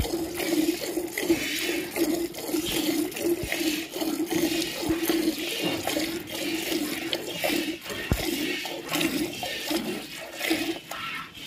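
Buffalo being milked by hand: streams of milk squirting into a metal milk pail in a steady rhythm of hissing squirts, which stop shortly before the end.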